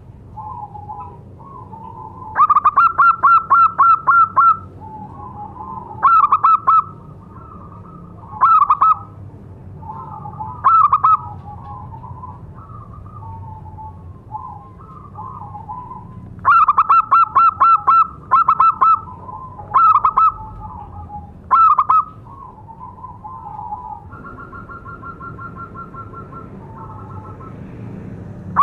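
Zebra dove calling: bouts of rapid staccato cooing notes, each bout lasting one to two seconds and coming about a dozen times, with softer rolling coos in between. The calls are repeated to lure other zebra doves.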